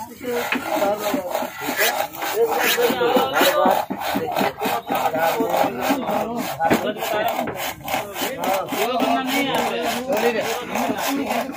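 A hand saw cutting through a wooden stick in quick, even back-and-forth strokes, about three a second.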